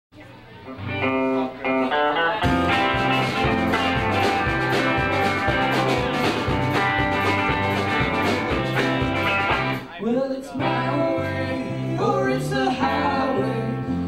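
Small live band of guitarists playing a song's instrumental opening: a quieter start for about two seconds, then the full band comes in with a steady beat, with a short break about ten seconds in before it picks up again.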